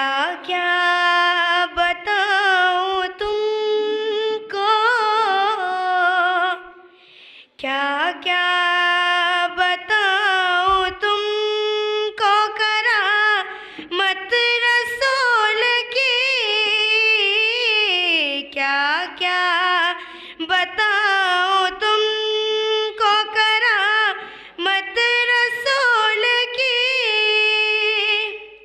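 A young woman singing a naat solo and unaccompanied into a hand-held microphone, in long, ornamented melodic lines with a short break about seven seconds in.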